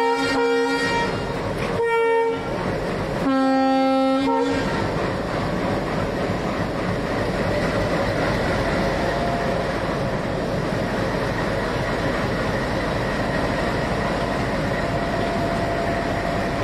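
ALCO diesel-electric locomotive sounding its multi-tone horn three times: a long blast, a short one and another long one, over the first four and a half seconds. After that the engine and train run steadily as the express pulls away.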